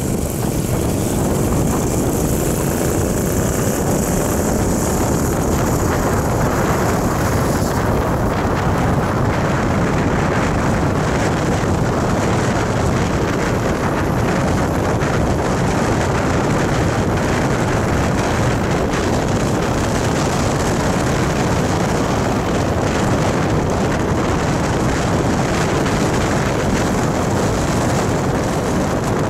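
Steady wind rush on the microphone of a camera riding on a moving vehicle, with engine and road noise underneath. In the first few seconds an engine tone can be heard shifting in pitch.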